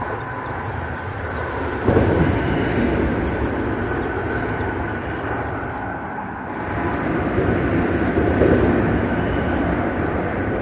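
Road traffic on the highway bridge overhead: a steady rushing rumble of tyres and engines that swells about two seconds in and again later.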